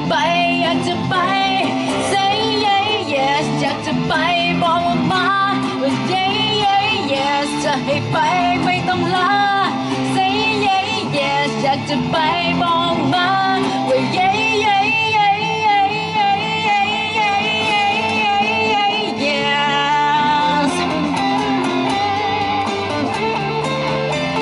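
A woman singing a Thai pop song into a microphone, her held notes carrying vibrato, with live electric guitar accompaniment.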